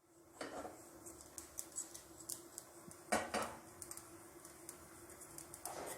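A spoon stirring and scraping poppy seeds as they dry-roast in a pan, with three louder scraping strokes (about half a second in, around three seconds, and near the end) and scattered light ticks between.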